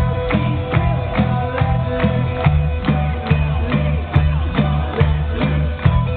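Loud music with a fast, steady drum beat and a driving bass line, played as a darts player's walk-on music.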